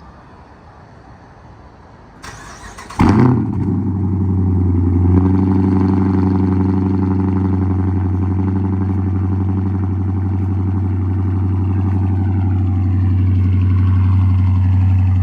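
Dodge Charger Hemi V8 started: the starter cranks briefly about two seconds in, the engine catches with a loud flare about a second later, then settles into a steady, deep idle.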